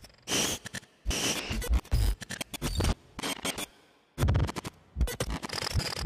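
Experimental noise music made of stuttering, scratchy and scraping bursts over deep thuds. It drops out briefly near one second and again just before four seconds in.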